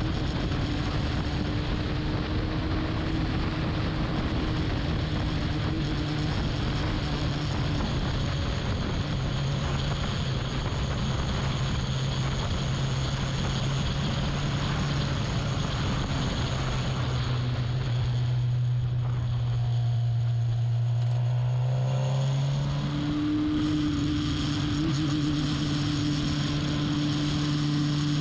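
Racing saloon or sports car engine running hard at a steady high pitch. Its note sinks lower through the middle and goes quieter in its upper range as the car comes off the throttle, then it picks back up to the higher pitch about five seconds before the end.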